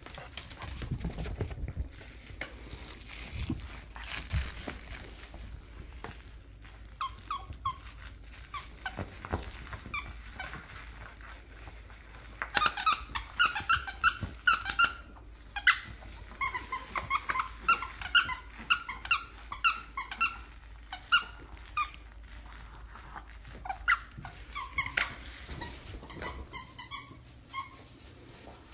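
A dog chewing a squeaky plush toy, setting off runs of short, quick squeaks. The squeaks are sparse at first, come thick and fast through the middle, and thin out near the end.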